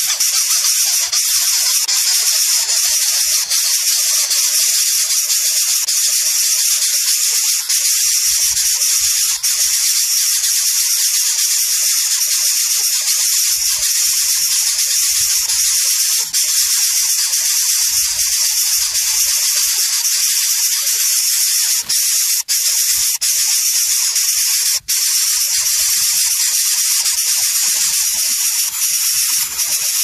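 Greater coucal nestlings hissing, a harsh, steady, loud hiss kept up as they gape at the adult for food, with a couple of brief breaks in the second half.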